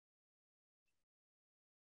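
Near silence: the remote participant's audio has dropped out on a failing video-call connection.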